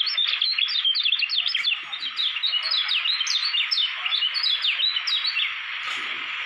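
Caged kecial kuning (Lombok white-eye) singing a fast, unbroken run of short chirping notes, each sweeping sharply up or down, that stops about five and a half seconds in. A steady hiss runs underneath.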